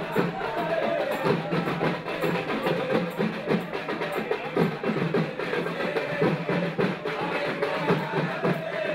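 Festival procession drumming: rapid, steady drum strokes with a wavering melody line running above them.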